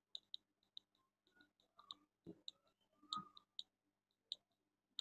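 Faint, irregular computer mouse clicks, about a dozen, made while handwriting is drawn on screen, with a couple of soft knocks in the middle.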